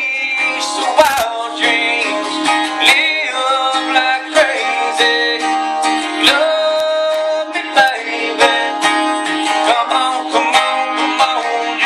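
Two acoustic guitars playing a country song, one strumming chords and the other picking a lead line, with a man singing at times.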